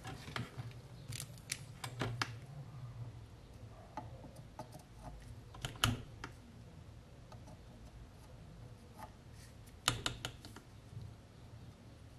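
Scattered light clicks and taps of a soldering iron, small tools and the ECU's metal housing being handled on a workbench, with the loudest knocks about 6 and 10 seconds in, over a faint low hum.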